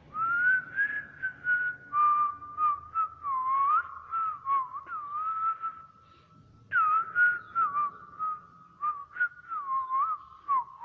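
Whistled tune: a single melody line sliding between notes, over light rhythmic taps, breaking off briefly about six seconds in.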